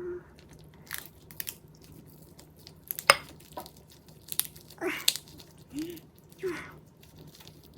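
Close-miked mouth sounds of someone eating soy-sauce marinated crab with rice: sharp clicks and smacks, the loudest about three seconds in, then three short pitched mouth sounds in the second half.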